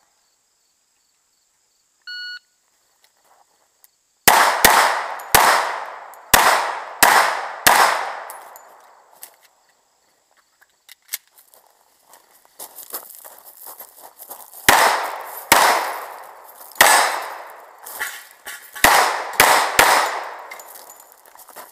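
A shot timer beeps once, and about two seconds later a pistol fires about six shots in quick succession, each ringing out. After a pause of several seconds with a few small clicks, a second string of about seven pistol shots follows.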